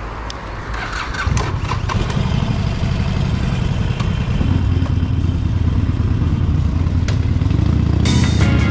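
Harley-Davidson Sportster XL1200X air-cooled V-twin running at low revs close by, a deep steady rumble that swells about a second in. Music comes in near the end.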